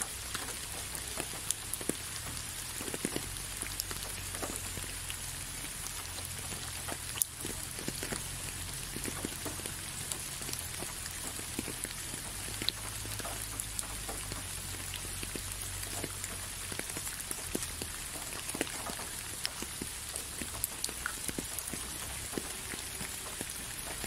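Rain falling steadily, with many separate drops ticking on a hard wet surface over an even hiss and a low steady rumble underneath.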